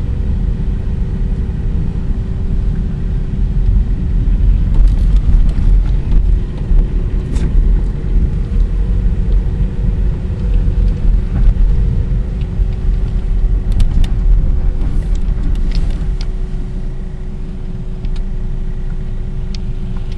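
A car driving, heard as a steady low road and engine rumble with a thin constant hum over it and a few faint light clicks.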